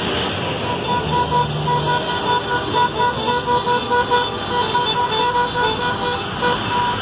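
Vehicle horns honking in short repeated beeps, several a second, a protest honk from a line of transport vans, over steady street traffic. A bus engine is heard pulling past at the start.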